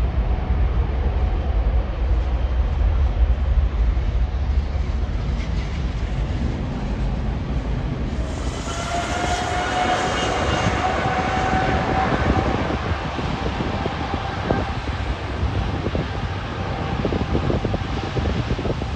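Jet airliner engines: a deep, steady rumble, joined about eight seconds in by a louder jet roar with a high whining tone that rises slightly and then holds.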